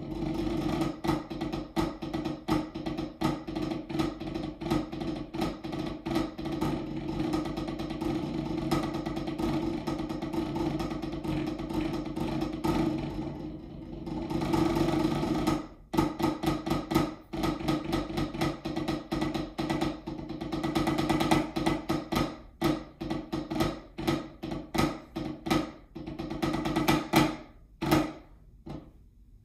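Snare drum played with drumsticks: a solo snare etude of fast, dense stick strokes over the drum's ringing snares. About halfway through, a continuous roll swells in loudness, then the strokes become more separated and accented and the piece ends shortly before the close.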